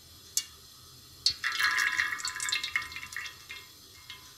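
Cooking oil poured from a bottle into an empty metal karahi: a splashing pour lasting about two seconds that tapers into a few drips, with a single click just before it.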